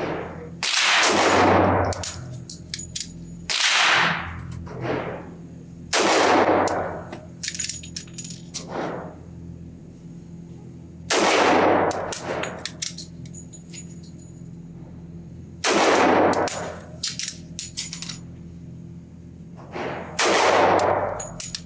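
Sig Sauer P227 .45 ACP pistol fired six times slowly in double action, each shot echoing in an indoor range. Between shots there are light metallic clicks as the hammer is lowered with the decocker.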